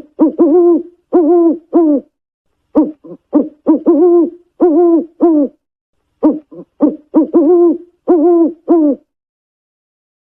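An owl hooting in three bouts of quick, pitched hoots, each bout a string of several notes, with short pauses between bouts. It falls silent a little over a second before the end.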